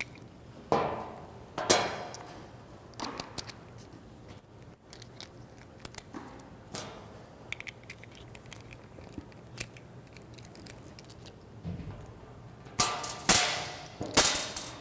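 Hand tools working metal fasteners: scattered sharp metallic clicks and clinks from a socket wrench and hex key as the light's guard is unbolted. The louder clanks come about a second in, near two seconds in and in a cluster near the end.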